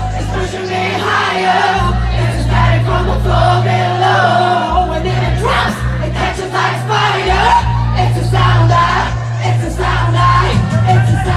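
Live pop music played loud through a concert PA: a driving bass line and drums under sung vocals, with crowd noise mixed in.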